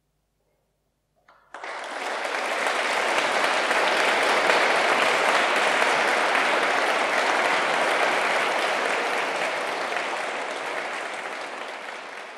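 Audience applause breaking out suddenly about a second and a half in, after a brief silence, then carrying on steadily and easing off a little near the end.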